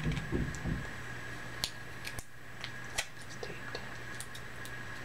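Faint, scattered small clicks and ticks as a lip balm tube is handled and twisted open, about half a dozen light clicks over a few seconds, with a steady low hum underneath.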